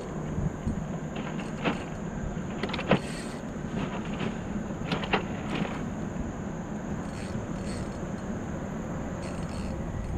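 A fishing reel being wound in while a hooked fish is played toward a small boat, over a steady low hum and a steady high whine. A few sharp clicks and knocks stand out, the loudest about three seconds in.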